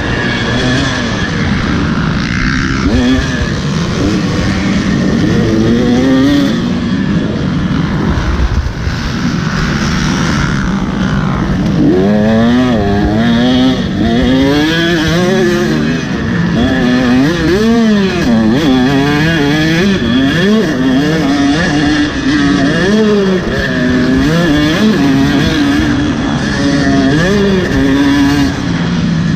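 Dirt bike engine on a motocross track, revving up and falling back again and again as the throttle opens and closes, its pitch swinging up and down every second or so.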